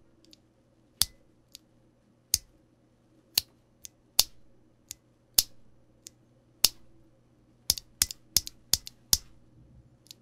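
A single Thic Thock Konpeitou mechanical keyboard switch, out of the keyboard, pressed and released by finger. It gives sharp plastic clicks about once a second, quickening to a rapid run near the end. The switch has no factory lube, and the presses test it for spring ping.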